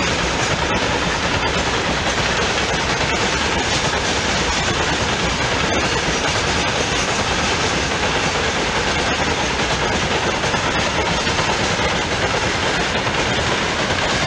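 Freight train of open gondola wagons rolling past, a steady rumble of wheels on the rails.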